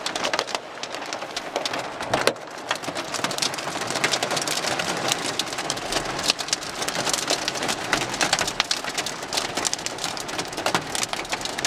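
Pea-sized hail and heavy rain pelting down together: a dense, rapid patter of sharp hailstone ticks over a steady loud hiss of rain.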